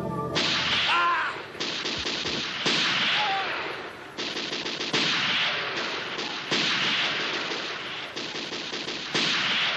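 Automatic gunfire, bursts of rapid shots with a fresh burst starting every second or so. A brief whining tone cuts through about a second in and again about three seconds in.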